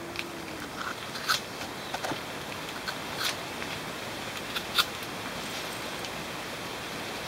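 Knife blade scraping and cutting into cinnamon tree bark: a handful of short, sharp scrapes and snicks, the loudest about a second in, over a steady hiss.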